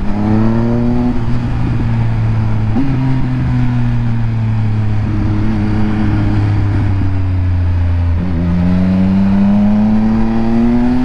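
Triumph Speed Triple RS three-cylinder engine through a Scorpion titanium exhaust, heard from the bike while riding. The engine note climbs, holds a steady pitch, then drops about eight seconds in and climbs again as the bike pulls through the gears.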